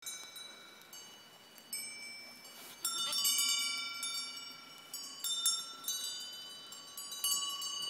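Bells on goats' collars ringing as the goats move about, struck at irregular moments, each strike leaving a clear, lingering ring.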